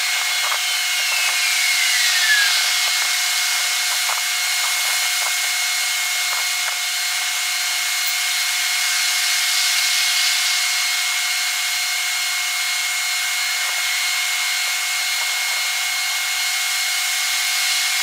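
Outdoor night ambience sped up sixfold with the timelapse, so it comes out as a steady, thin, high-pitched hiss with scattered faint clicks. A whine falls in pitch over the first two seconds or so.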